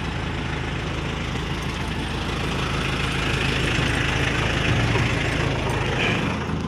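Engine of a mini dump truck idling steadily.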